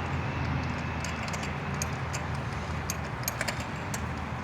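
A few light metallic clicks and clinks of a spark plug socket on its extension as a new spark plug is threaded in by hand, over a steady low outdoor rumble.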